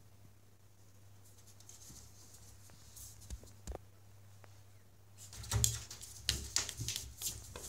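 Cats' claws pawing at a door gap: a few light taps and clicks, then, about five seconds in, a burst of scrabbling and scraping of claws against the door edge and frame.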